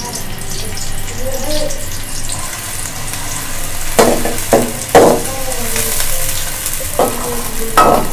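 Sliced onions sizzling steadily in hot oil in an aluminium karahi. A metal slotted spoon stirs them, knocking and scraping against the pan several times in the second half.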